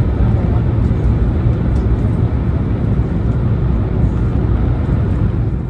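A Shinkansen train running, a steady low rumble with rushing noise.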